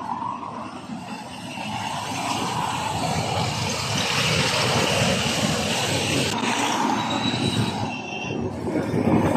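Heavy diesel trucks passing close on a highway, with engine rumble and tyre noise. A rushing hiss swells as a tractor unit goes by and cuts off suddenly a little past six seconds in. Brief high-pitched squeals follow near the end.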